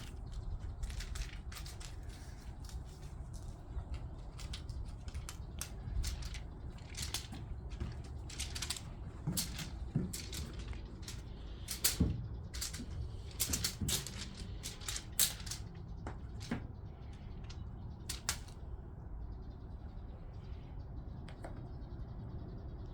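Crinkly kasha-kasha cat teaser toy rustling and crackling in quick, irregular swishes as it is flicked about for a cat to chase.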